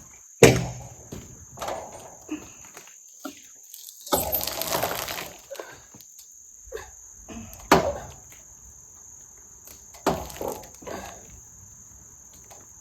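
Sharp knocks and a brief scraping as a very long log is pried and rolled by hand on a sawmill bed: three heavy knocks, the first and loudest about half a second in, with about a second of scraping between them. A steady trill of crickets runs underneath.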